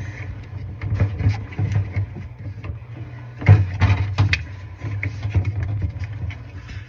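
Irregular clicks and knocks of hands handling parts while a refrigerator's evaporator fan motor is fitted, over a steady low hum.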